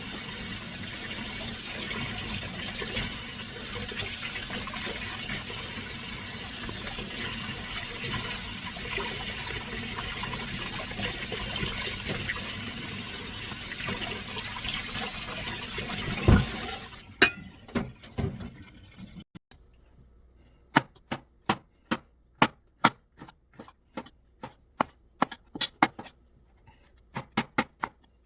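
Tap water running steadily, as for rinsing mushrooms, for about the first seventeen seconds, then cut off with a knock. After that comes a string of sharp, irregular knocks from a knife slicing on a cutting board.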